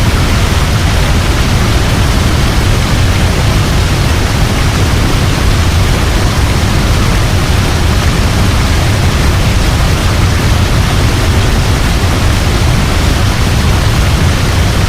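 Mountain waterfall rushing in a steady, unbroken roar of falling water, heaviest in the deep low end.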